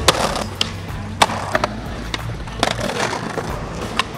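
Skateboard rolling on city pavement, with a series of sharp clacks as the board pops and lands during street tricks, over background music.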